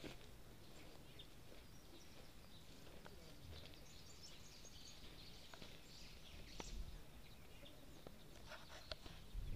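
Faint outdoor ambience of birds chirping, with a few soft clicks and low bumps from footsteps and handling near the microphone.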